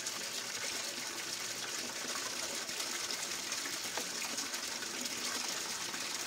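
Pumped water gushing steadily through a gold sluice box and pouring off its end into a tub of muddy water as gold-bearing dirt is washed through.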